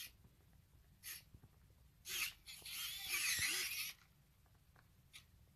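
Dalmatian Robopet robot dog toy sounding off in short harsh bursts, with a longer, louder one of about a second and a half near the middle.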